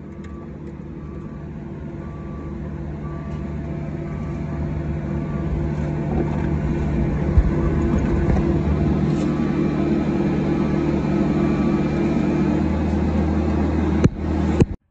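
Excavator diesel engine working under load as dirt is pushed, growing louder over the first several seconds and then holding steady, with a faint repeated beep at times. It cuts off suddenly just before the end.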